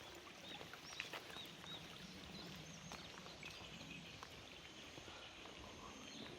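Faint outdoor ambience with birds singing: a few short arched whistled notes close together in the first couple of seconds, over a low steady background noise.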